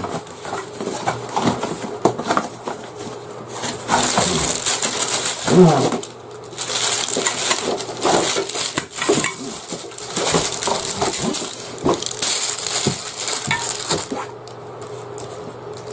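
Plastic packaging rustling and crinkling in several long bursts as gear is unwrapped and handled, with light clinks.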